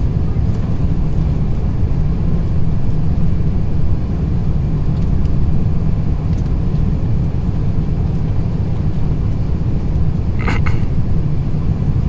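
Steady low rumble of an Airbus A350's engines and airflow, heard inside the cabin on final approach. A brief higher-pitched sound cuts in once near the end.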